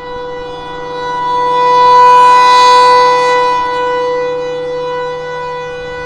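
Federal Signal Thunderbolt 1000 rotating civil-defense siren sounding a steady single tone during a test. The pitch holds level while the loudness swells to a peak about two to three seconds in and then falls away as the turning horn sweeps past and away.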